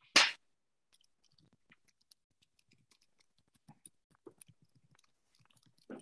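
A short, loud burst of noise on the presenter's microphone at the very start, then faint scattered clicks and small mouth sounds while she waits.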